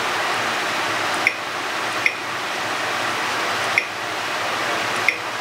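Four short, high beeps from the Pfaff Creative 4.5 sewing machine's touchscreen as keys are pressed, irregularly spaced, over a steady hiss.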